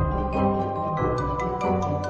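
Intro music: held chords over a low bass, with a run of quick struck notes, about six a second, starting about a second in.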